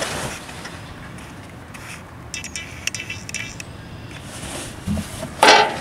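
Light metallic clinks and taps from metal hand tools and hardware being handled, then a thump and a louder short clatter about five seconds in.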